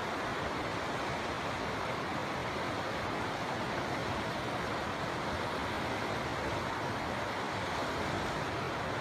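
River water flowing, a steady even rush with no breaks.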